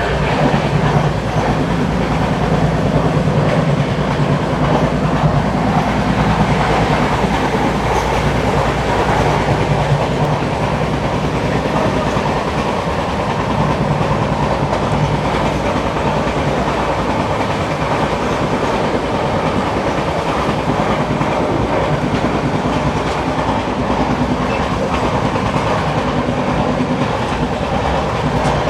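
Steady rumbling running noise of a moving vehicle, with a continuous low hum throughout.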